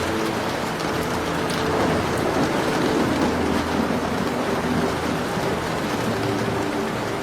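Steady rain falling, with faint scattered crackles of a wood fire. A low rumble swells about two seconds in and fades again.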